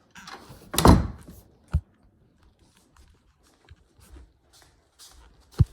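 A wall light switch clicked off and then back on, two sharp clicks about four seconds apart, after a louder knock with some rustle about a second in.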